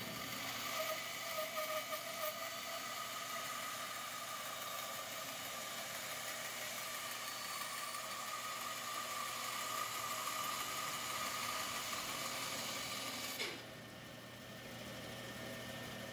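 Band saw ripping a small block of wood into a thin strip, a steady machine whine under load. About three-quarters of the way through the sound falls away sharply as the cut finishes, and the saw runs on more quietly.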